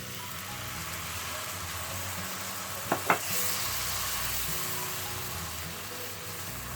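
Onion, garlic and chili sizzling in hot oil and ghee in a pan, a steady frying hiss. About three seconds in come two sharp clicks, and the sizzle briefly gets louder.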